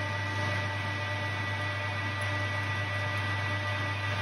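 Metal-turning lathe running steadily under power, its motor and gearing giving a constant hum with a thin high tone, while fine cuts are taken to turn a shoulder.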